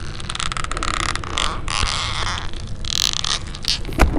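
Cartoon sound effects for a flailing creature: a continuous rough, rasping, scuffling noise, with a heavy thump about four seconds in as it lands face-down.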